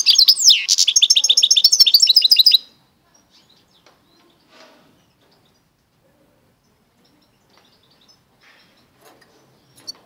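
Goldfinch × canary mule singing a fast twittering song of rapid high notes. The song stops abruptly about two and a half seconds in, leaving only a few faint short sounds.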